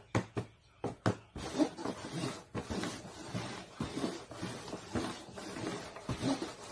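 Paper cups knocked down onto a paper-covered board a few times, then slid and shuffled across it in a scraping rustle with small knocks.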